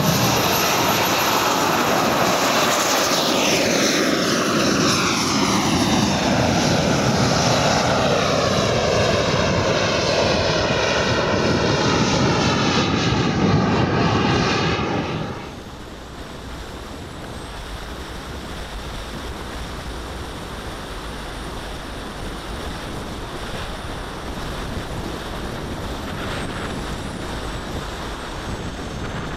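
The four Jets Munt 160 gas turbines of a 1/5 scale Avro Vulcan model running at high power, a loud jet rush whose tone sweeps and shifts as the aircraft climbs away. About halfway through it cuts abruptly to a steadier, quieter rush of turbine and air noise heard from a camera mounted on the airframe.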